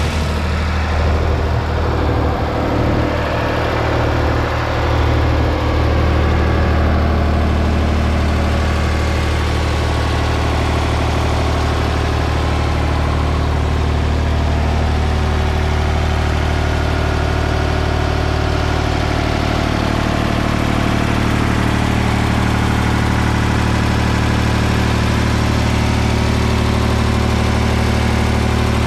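Ford 4600 tractor's three-cylinder engine idling steadily, with an even, unchanging pitch.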